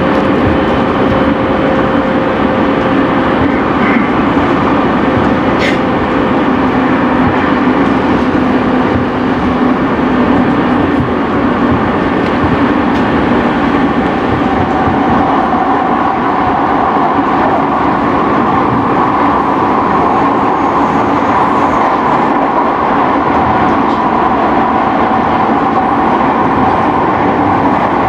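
Running sound inside a JR East E217 series motor car (MoHa E216-2044) moving at speed: a steady, loud rumble of wheels and running gear on the rails. A low hum fades out in the first third, and a higher hum comes in about halfway through.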